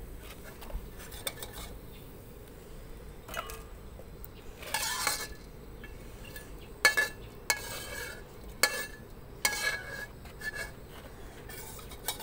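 A metal spatula scraping and knocking against an aluminium wok while scooping fried rice out of shallow oil. There is a longer scrape about five seconds in, then several sharp metallic clinks with a brief ring.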